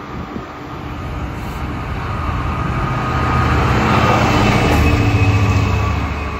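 Freightliner Class 66 diesel locomotive hauling a container freight train past: the low drone of its two-stroke V12 diesel engine and the rumble of wheels on rail build up and are loudest as the locomotive goes by, about four to five seconds in.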